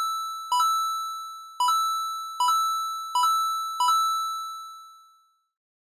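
A chime struck five times at the same pitch, roughly once a second, each bell-like note ringing on and fading; the last one dies away about five seconds in.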